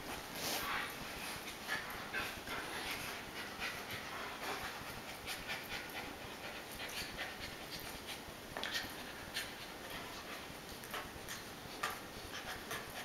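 An adult American Akita and a puppy play-wrestling on a rug: a dog panting, with irregular soft scuffles, rustles and small clicks as they roll and paw at each other.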